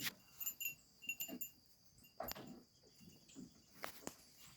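Quiet farmyard ambience: faint, short high-pitched chirps repeat throughout, with a few soft clicks.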